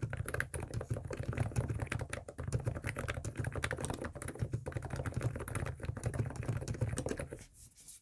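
ABKO K935P non-contact keyboard with 50 g springs being typed on quickly in a dense run of keystrokes. The sliders, springs and stabilizers are fully lubricated. The typing tapers off and stops near the end.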